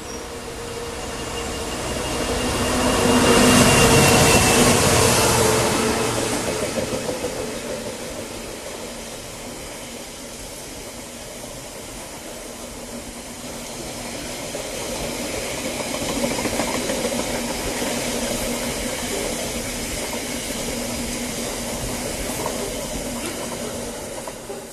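Class 66 diesel-electric freight locomotive running hard as it passes, loudest about four seconds in. A long freight train of box wagons follows, its wheels rolling steadily on the rails, swelling again partway through and fading near the end.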